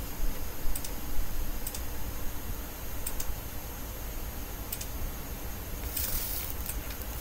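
Crochet hook and cotton yarn being worked by hand: faint, irregular light clicks about once a second, with a brief rustle about six seconds in, over a steady low hum.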